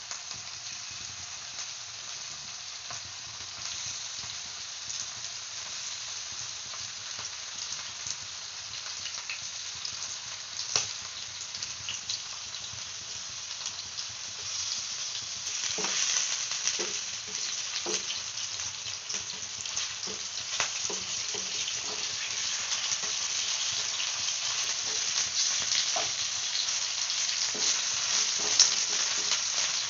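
Flour-coated chicken pieces shallow-frying in hot refined oil in a nonstick frying pan: a steady sizzle that grows louder about halfway through as more pieces fill the pan. There are occasional sharp clicks, and a wooden spatula stirs near the end.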